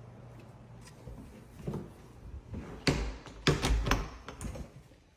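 A door being handled: a few sharp knocks and clunks with dull thuds about three seconds in, loudest twice in quick succession.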